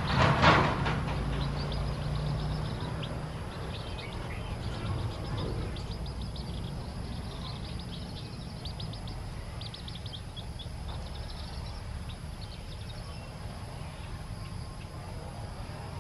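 Newly hatched chicks peeping: many short high cheeps, thickest in the middle of the stretch, over a steady low rumble. A single loud knock comes about half a second in.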